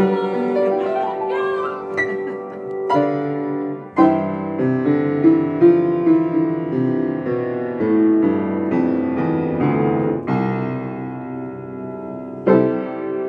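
Upright piano played by hand: a slow tune in chords, the notes ringing on between fresh strikes, with a firmer chord struck near the end.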